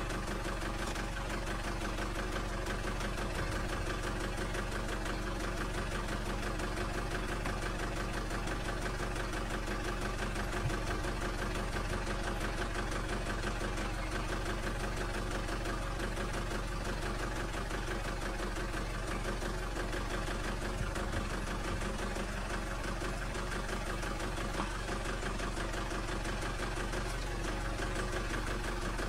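A vehicle engine idling steadily, with an even hum that does not change.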